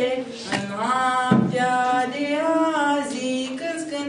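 A woman singing solo and unaccompanied, a slow melody of long held notes that glide from one to the next.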